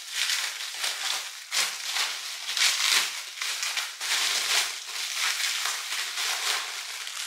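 Plastic bubble wrap crinkling and rustling as it is pulled off a candle jar by hand, a dense run of irregular crackles.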